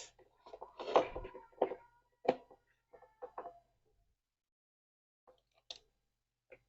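Handling knocks and clicks from refrigerator fan parts being worked on by hand: a quick run of sharp knocks in the first four seconds, loudest about a second in, then a few isolated clicks.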